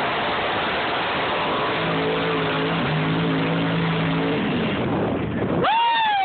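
Mud-racing truck's engine at full throttle, loud and steady as the truck ploughs through the mud pit. About five and a half seconds in the roar drops away suddenly and a single high tone falls in pitch.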